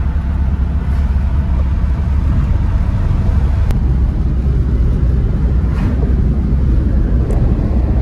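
Steady low rumble of road and engine noise inside a moving Honda's cabin at highway speed.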